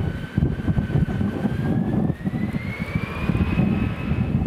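Boeing 747-400F freighter's four jet engines spooling up: a whine that rises steadily in pitch for about three seconds and then holds, over a low, uneven rumble.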